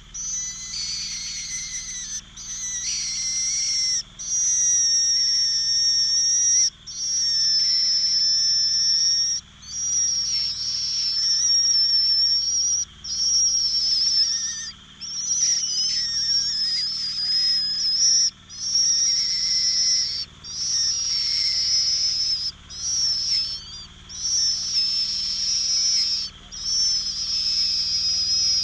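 Cuckoo chick begging: a loud, high, thin hissing whistle held in long stretches, broken by short pauses every one to three seconds.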